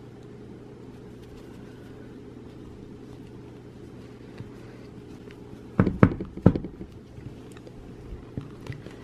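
A steady low hum, broken about six seconds in by three loud knocks in quick succession, with a few faint taps near the end.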